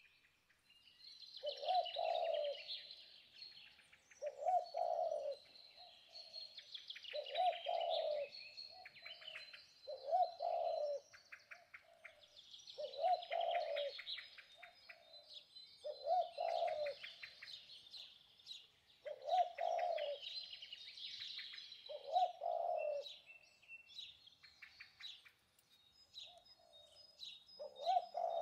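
Forest birdsong: one bird gives a low, hooting call of about a second, repeated roughly every three seconds, while other birds chirp and trill busily at a much higher pitch.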